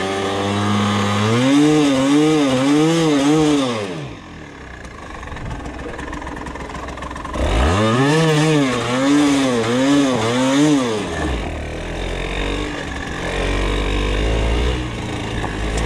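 Yamaha TDR 125's two-stroke single-cylinder engine revved in quick rising-and-falling pulses, about two a second, in two bursts of a few seconds with lower running between. The rear wheel is slipping for grip on a muddy slope.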